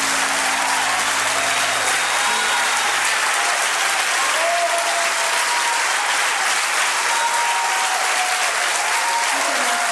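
Concert audience applauding, with a few scattered cheers, as the band's last held chord dies away about three seconds in.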